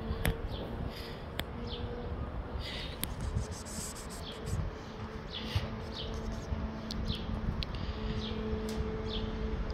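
A flying insect buzzing on and off, a steady low hum that fades and returns, with short high bird chirps scattered through it.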